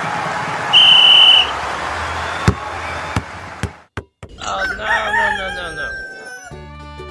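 A rooster crowing once, one long call rising and then held, after a cut. Before it there is a steady noisy background with a loud, short, high steady beep about a second in. Music starts near the end.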